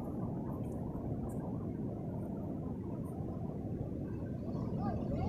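Beach ambience: a steady low rumble of surf and wind, with no distinct events.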